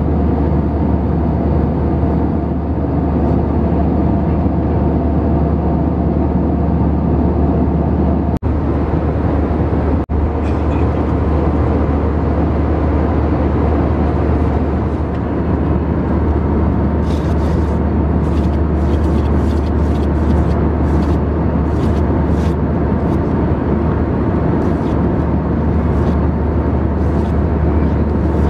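Steady cabin noise of an Airbus A320-200 in flight: a constant engine and airflow drone with a low hum and a few steady tones. It cuts out briefly twice, a couple of seconds apart, and a scatter of faint light clicks comes in during the second half.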